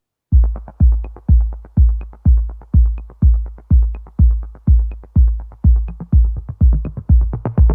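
Background electronic music: after a brief gap, a steady, deep kick-drum beat about twice a second with light ticks above it, and fuller synth parts coming in at the very end.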